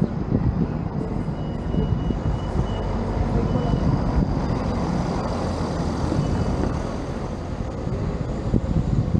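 Steady noise of a running vehicle, a continuous rough rumble without speech.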